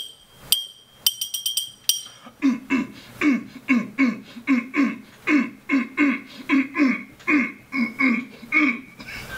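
A small metal object clinking against an empty glass Coca-Cola bottle a few times, each clink ringing briefly. From about two seconds in comes an even run of short, low pulses, about two and a half a second, each dropping slightly in pitch, until near the end.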